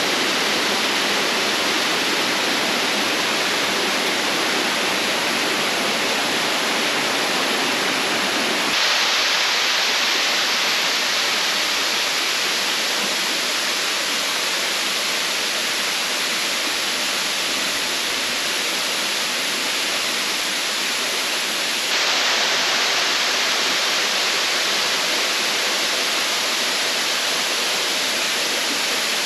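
Rushing water, a loud, steady hiss of falling water. Its tone changes abruptly twice, becoming brighter and thinner about a third of the way through and again about three-quarters through.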